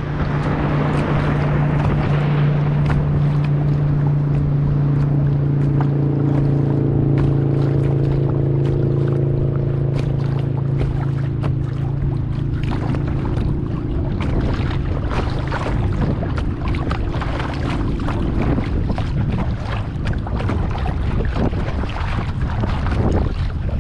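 Wind buffeting the microphone and choppy water slapping against a plastic kayak's hull. A boat engine drones steadily underneath and fades out after about fifteen seconds.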